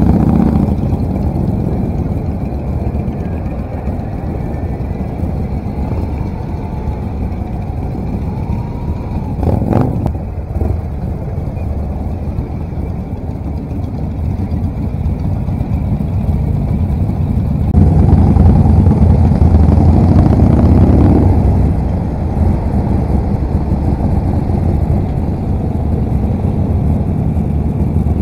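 BMW R 1200 RT motorcycle ridden slowly among other motorcycles: its boxer-twin engine running under wind and road noise. A single sharp knock comes about ten seconds in, and the noise swells louder for a few seconds about two-thirds of the way through.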